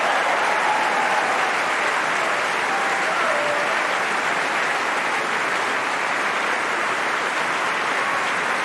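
A large opera-house audience applauding at the curtain call: dense, even clapping that holds steady throughout.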